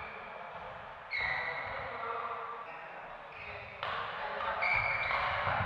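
Several short, high squeaks from badminton players' shoes gripping the synthetic court mat during a rally. Behind them is a steady hall noise with voices, which gets louder about a second in and again near the end.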